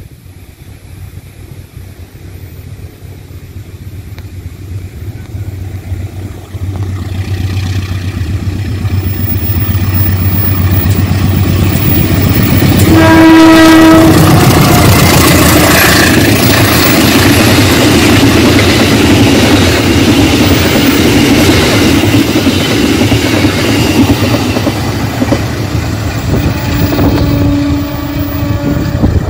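A CC 203 diesel-electric locomotive hauling a passenger train approaches with a steadily growing engine rumble. About halfway through it sounds its horn once, for about a second, then passes close by with loud engine and wheel noise on the rails. A shorter steady tone comes near the end.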